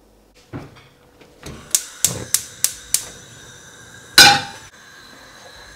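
Kitchen cookware handled: five sharp clicks about a third of a second apart, then one loud metallic clank that rings briefly.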